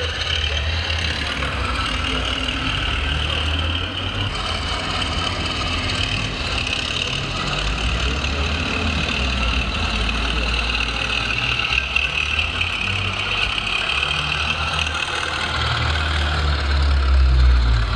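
Radio-controlled scale construction machines running, a steady engine-like rumble with a higher whine over it, swelling briefly near the end.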